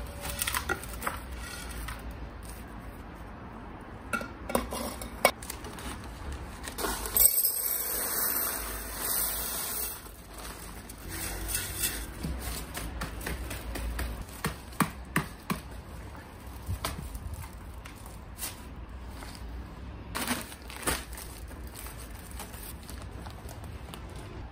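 Potting soil being tipped, scooped and poured by gloved hands in plastic flower pots: rustling and sliding of soil with scattered scrapes and light knocks against the plastic, busiest about seven to ten seconds in.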